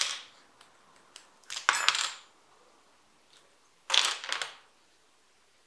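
Plastic Lego bricks snapping apart and clattering onto a tabletop as a brick mould box is taken off a cured silicone mould. There is a sharp click at the start, then short clatters about two seconds and four seconds in.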